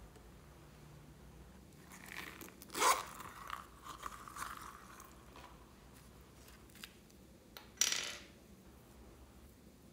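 Plastic slime containers and a squeeze tube being handled over a glass tray: a sharp click about three seconds in, softer taps and rustling after it, and another sharp click about five seconds later.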